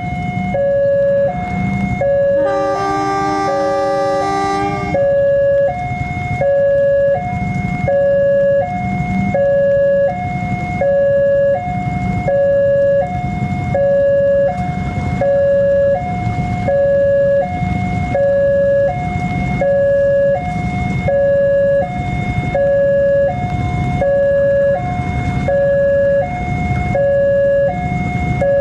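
Electronic two-tone warning alarm sounding over and over, alternating a higher and a lower tone about once every 1.3 seconds, typical of an Indonesian railway crossing or station warning. A diesel locomotive rumbles underneath as the CC 201 pulls its train out of the station. About two and a half seconds in, its multi-note horn sounds for about two and a half seconds.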